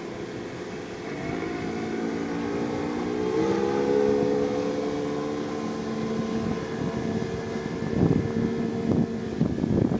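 Tohatsu outboard motor on a small skiff running past; its engine note rises over the first few seconds, then holds steady as the boat moves away. Wind buffets the microphone near the end.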